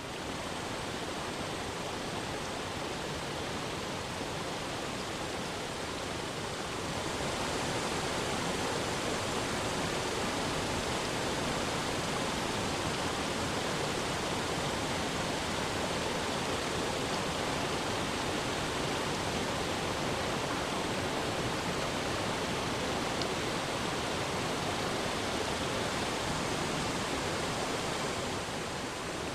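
Tiered waterfall cascading over rocks: a steady, dense rush of falling water. It grows a little louder about seven seconds in and eases slightly near the end.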